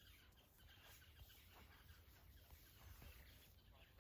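Near silence: quiet outdoor ambience, with a faint low rumble and a few soft clicks.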